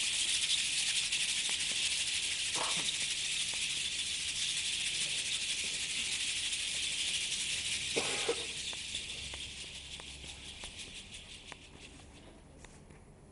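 A continuous dry rattling hiss, like a shaker or a snake's rattle, made of many fine clicks. It carries two brief duller sounds about two and a half and eight seconds in, then fades away over the last few seconds.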